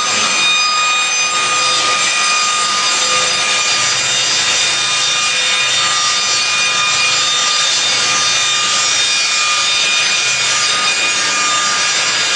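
Circular saw blades of a slab-edging sawmill machine running and sawing wood, with a steady, high whine.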